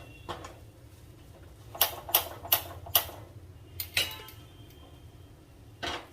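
Cooking utensil knocking against a pan: a small tap, then a run of four sharp metallic knocks about 0.4 s apart, a couple more soon after and one more near the end.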